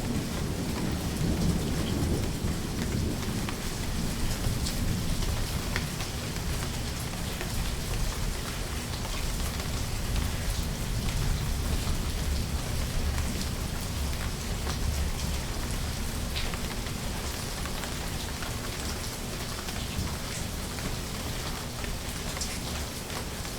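Steady heavy rain falling, with low rolling thunder rumbling underneath, heaviest in the first few seconds and again around the middle, fading away near the end.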